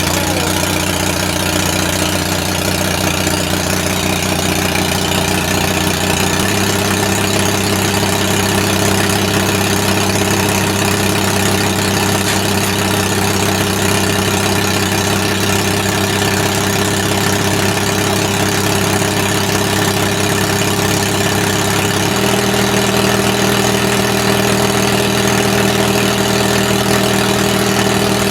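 An engine running steadily; its speed steps up about a quarter of the way in and again about three quarters of the way in.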